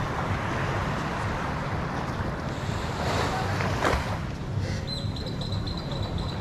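Surf washing onto the beach, with wind buffeting the microphone. A faint thin high tone comes in near the end.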